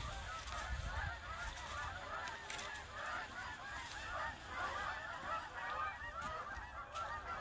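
A large flock of geese honking in flight, many calls overlapping in a steady chorus.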